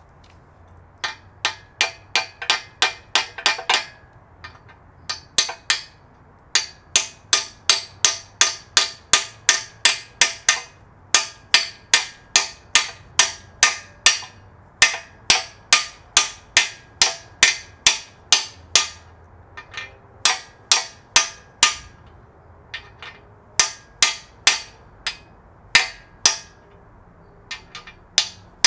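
Hammer striking a 7/8-inch socket held on a core plug, driving the plug into a cast-iron small-block Chevy 350 engine block. Runs of sharp metallic strikes with a short ring, about three a second, broken by brief pauses.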